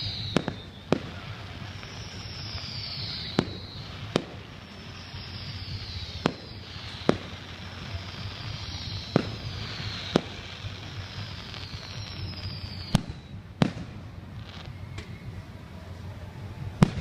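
Fireworks display: about six shells whistling with a falling pitch, each ending in a sharp bang, with further bangs often following under a second later, over a steady low rumble.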